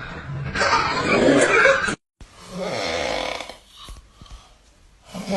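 Snoring: loud, rasping snores that break off abruptly about two seconds in. Another snoring breath follows, then a quieter stretch, and a new loud snore starts near the end.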